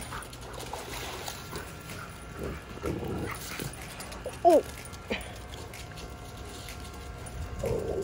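Alaskan malamutes vocalizing at play: a few short, scattered dog calls.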